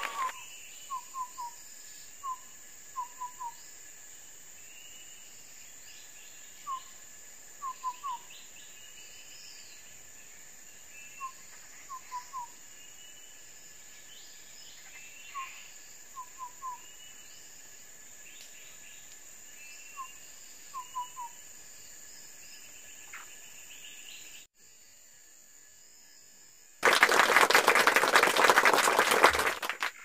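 Mouth whistle imitating a bird call to lure birds to a birdlime trap: a short rising note followed by three quick notes, repeated every four to five seconds, over faint bird and insect chirping. Near the end a loud rustling handling noise takes over.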